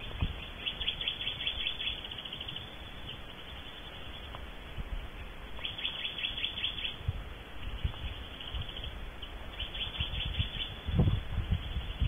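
Barn owls in a nest box making short bursts of rapid, high chittering, about five bursts a second or two apart. Near the end, low bumps and rustling as the adult owl shifts in the box.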